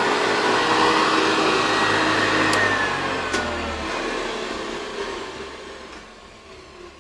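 Hoover 912A vacuum cleaner running, then switched off about two and a half seconds in with a click; the motor winds down, its whine falling in pitch as the sound fades away.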